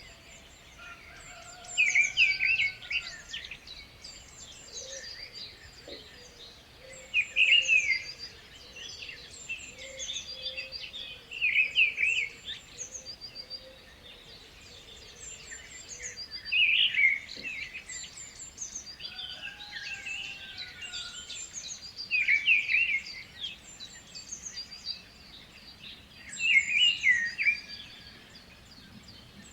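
Birds singing and chirping: one louder bird repeats a short phrase about every four to five seconds, over a constant chatter of higher chirps from other birds.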